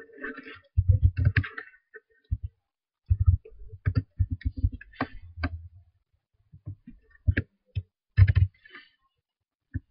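Typing on a computer keyboard: irregular clusters of short key clicks, each with a dull knock.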